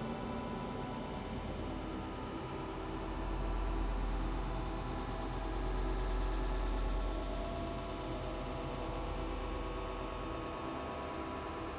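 Healing soundscape of crystal singing bowls and sustained tones: many steady ringing tones layered into one drone. A deep low hum swells in the middle and then eases back.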